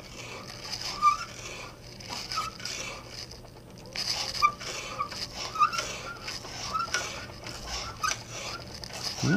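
Taper reamer in a hand brace cutting a tapered hole in wood: a rasping scrape with short, irregular squeaks as the brace is cranked round, louder from about four seconds in.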